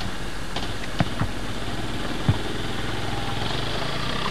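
Calves feeding at a wooden trough: a few sharp knocks, about one and two seconds in, over a steady low hum.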